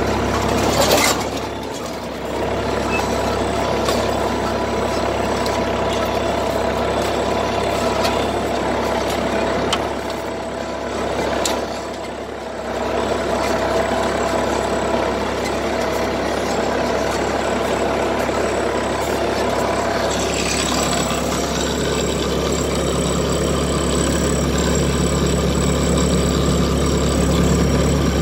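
Erkunt Kıymet M 95 Lüks tractor's diesel engine running steadily while pulling a spring-tine cultivator through the soil, with a sharp click about a second in and brief dips in level around two seconds in and again around ten to twelve seconds in.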